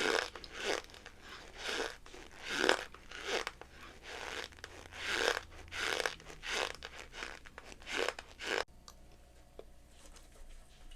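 Cornstarch being squeezed, giving a run of crunchy creaks at about one to two a second that stops abruptly near the end.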